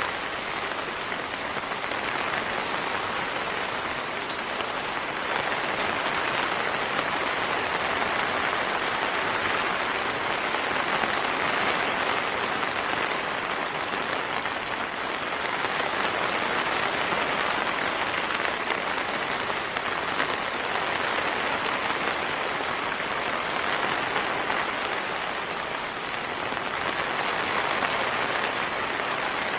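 Heavy rain falling steadily: a dense, even hiss that swells and eases slightly every few seconds.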